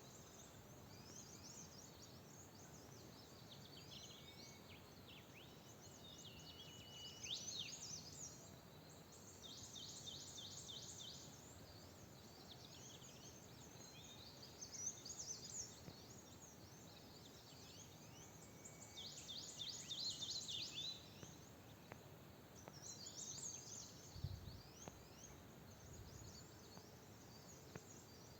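Songbirds singing in repeated bursts of rapid, high, down-sweeping notes every few seconds, over a faint steady forest background. Near the end comes a short low thump.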